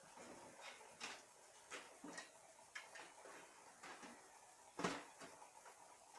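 Scattered light clicks and taps of PC parts being handled as a power supply is fitted into the case, with one louder knock about five seconds in.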